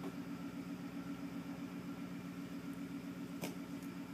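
Truck engine idling: a steady low hum with an even pulse beneath it, and a faint click about three and a half seconds in.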